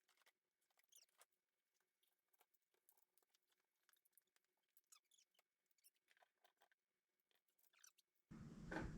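Near silence with faint, scattered small clicks and light scratching. About eight seconds in, a sudden louder rush of noise sets in.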